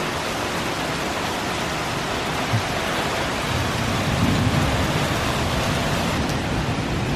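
Heavy rain pouring down steadily. About halfway through, a low rumble of thunder swells in under it, with one brief low thump before.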